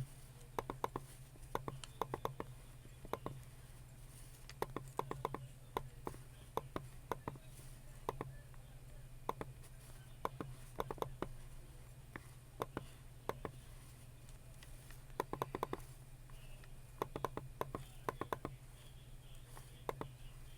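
Computer keyboard typing: quick runs of key clicks with short pauses between them, over a steady low hum.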